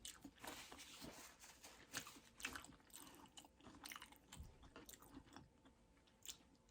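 A person chewing food close to the microphone, faint: irregular soft crunches and wet mouth clicks.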